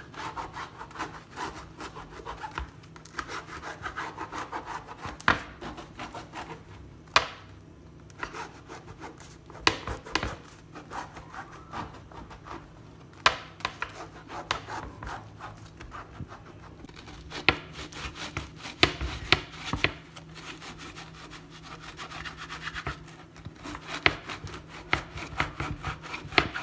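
A knife sawing back and forth through crusty flatbread on a wooden cutting board: a steady scraping rasp, broken by sharp knocks as the blade comes down on the board every few seconds.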